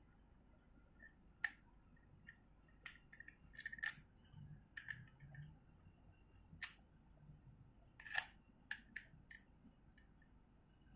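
Scattered faint clicks and small metallic clinks from a Shimano Saragosa SW14000XG spinning reel as its handle is fitted into the reel body by hand. About a dozen sharp clicks, the loudest about four and eight seconds in.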